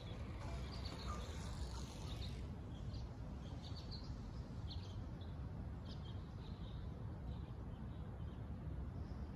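Outdoor ambience: a steady low background rumble with scattered short, high bird chirps.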